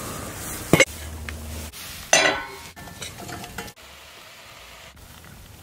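Camp cooking sounds from a steel saucepan and utensils over a campfire grill, clinking and stirring in short abruptly cut snippets. A sharp click comes about three quarters of a second in, and a louder clatter about two seconds in. The last couple of seconds are quieter.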